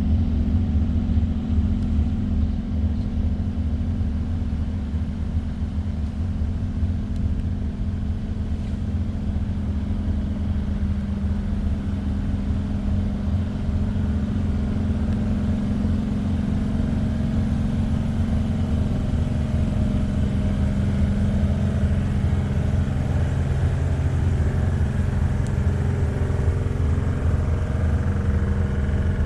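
Parked P865 light rail car, powered up with its pantograph raised, giving off a steady low hum and rumble from its onboard equipment that does not change.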